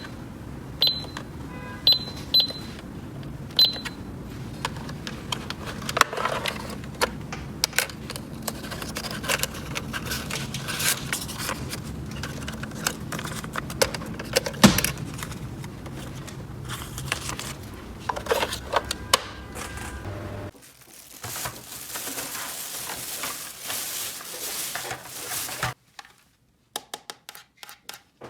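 Five short, high electronic beeps from a toy in the first four seconds, then hard plastic toy pieces clicking and clattering as they are handled. A stretch of rustling comes near the end.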